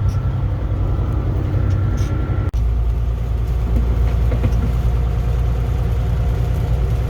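Steady low engine and road drone heard from inside a moving vehicle's cab. About two and a half seconds in it breaks off for an instant and carries on as a deeper drone.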